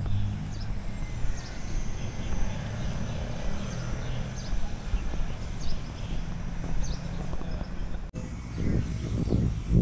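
Low, steady rumble of city traffic with small birds chirping now and then over it. The sound cuts out for an instant about eight seconds in, and a louder low rumbling follows near the end.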